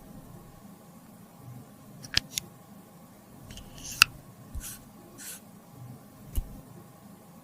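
Close-up handling of lipsticks and small tools: a few sharp clicks and taps, with short soft scraping swishes between them.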